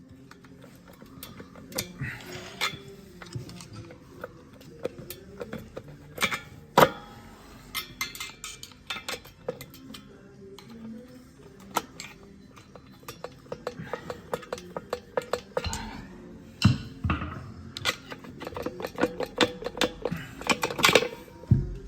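Irregular metallic clinks and knocks of tools and parts being handled, growing busier and louder over the last several seconds.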